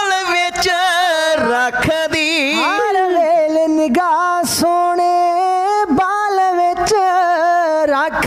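Male voices singing a long, drawn-out melodic phrase with wavering ornaments and pitch glides, in Punjabi dhadi style, crossed by a few sharp drum-like strokes.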